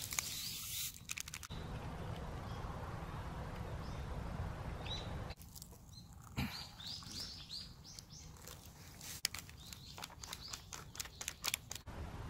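Birds chirping in short rising chirps, with a run of sharp clicks or snaps near the end.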